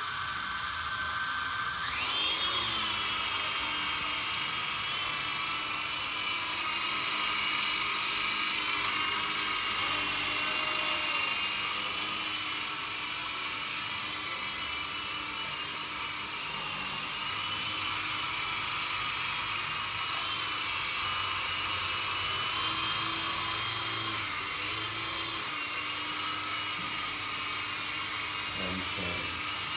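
Small toy RC helicopter's electric rotor motors whining high. The whine jumps up in pitch and loudness about two seconds in, then wavers up and down in pitch.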